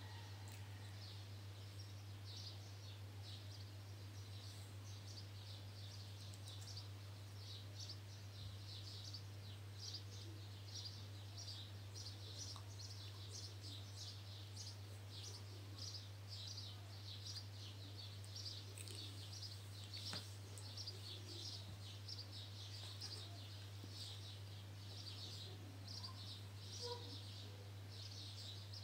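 Faint birds chirping, short calls repeated irregularly, over a steady low electrical hum.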